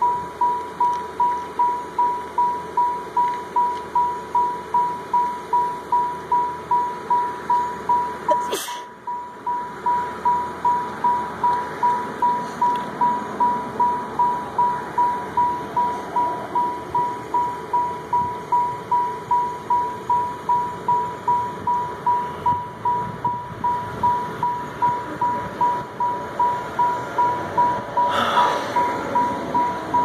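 Pickup truck's electronic warning chime dinging steadily about twice a second, one clear tone over and over, the alert that sounds while the driver's door stands open. A brief knock interrupts it about eight and a half seconds in.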